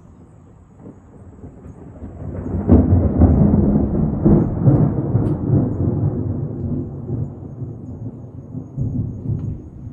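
Thunder rumbling: it builds from about a second in, breaks into a loud sharp clap near three seconds, then rolls on in a long, deep, uneven rumble that slowly fades, with one more swell near the end.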